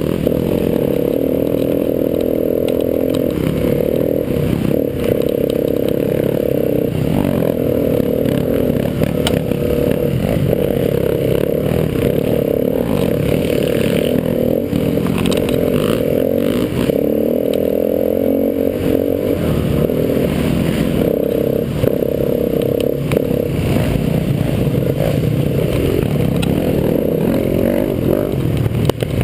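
KTM 350 EXC-F's single-cylinder four-stroke engine running under way, its note rising and falling with the throttle, with clattering and rattles from the bike over rough ground.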